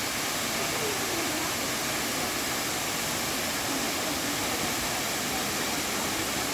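Waterfall rushing: steady, even noise of falling water that holds at the same level throughout.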